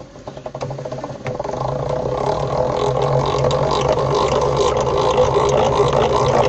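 Hand-cranked honey extractor spinning up as the crank is turned: a rapid clicking at first, then a steady whirring hum from the gears and the spinning frame basket that grows louder over the first couple of seconds. The comb frames are being spun to fling the honey out.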